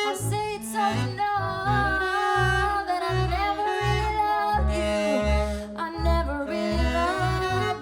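Small acoustic jazz group playing: double bass notes about two a second under held melody lines from voice and horns.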